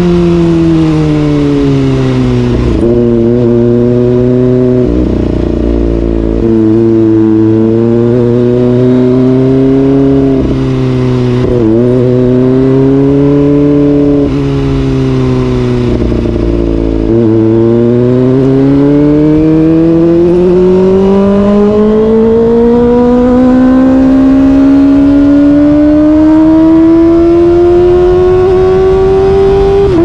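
Kawasaki ZX-25R's 249 cc inline-four with an SC-Project exhaust, heard from the rider's seat: the revs drop as the bike slows, hold low with a few brief dips and blips, then climb steadily in pitch through the second half as the bike accelerates hard.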